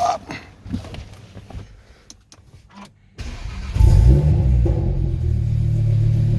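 A few light clicks, then, about three seconds in, the freshly rebuilt Audi RS3 2.5 TFSI five-cylinder (DAZA) engine is cranked and starts. It flares up in revs and settles into a steady idle.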